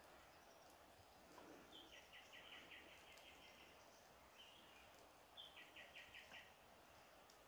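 Faint birdsong over a quiet forest background: a bird sings twice, each phrase a high note followed by a quick run of repeated notes.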